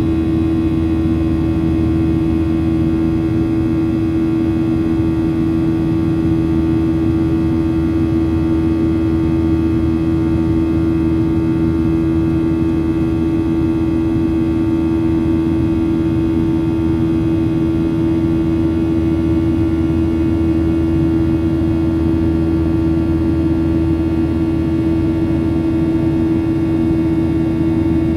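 Boeing 737-800 airliner in flight: a loud, steady engine and air-noise drone with a strong steady hum running through it, unchanging throughout.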